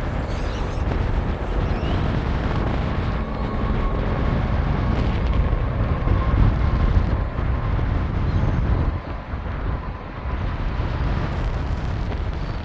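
Jet engine noise from a Boeing 737 MAX 8's CFM LEAP-1B turbofans: a loud, steady rumble with a faint high whine, growing louder around the middle and dipping briefly about nine seconds in.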